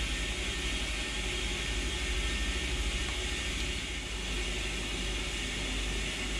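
Steady machinery drone in a yacht's generator room: an even whirring hiss over a low, fluttering rumble.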